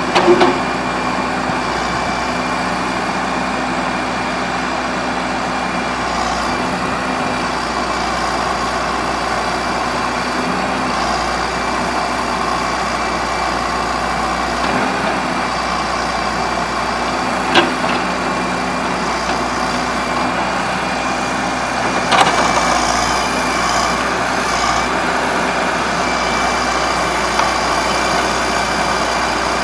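John Deere 310SJ backhoe loader's diesel engine running steadily at idle, with three short knocks: one at the very start, one about 17 seconds in and one about 22 seconds in.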